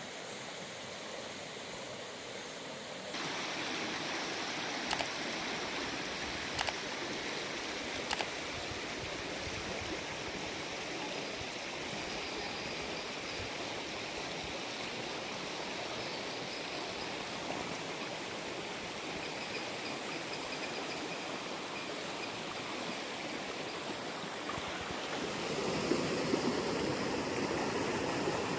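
River water flowing steadily, stepping up in level about three seconds in and growing fuller and louder near the end. Three short sharp clicks sound between about five and eight seconds in.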